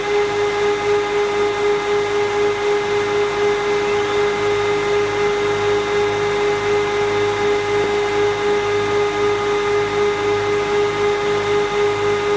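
Beaver 633M four-sided moulder's spindle motors running at speed: a steady whine over a low hum that pulses evenly, with a faint rising tone about four seconds in.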